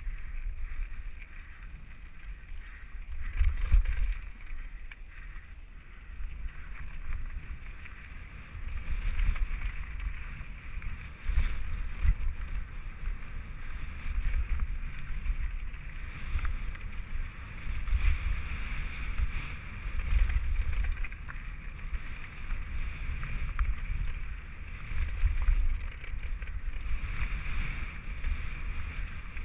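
Mountain bike rolling fast down a gravel forest trail, heard from a camera riding along: gusting wind rumble on the microphone over a steady hiss of tyres on the trail, with occasional knocks and rattles from the bike over bumps.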